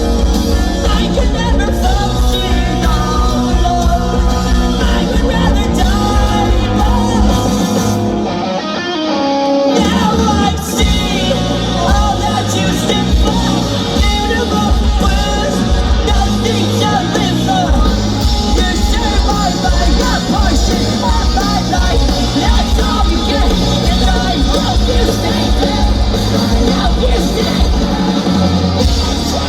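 Post-hardcore band playing live rock at full volume: distorted guitars, bass and drums under sung and yelled vocals. About eight seconds in the bass and drums drop out briefly before the full band comes back in.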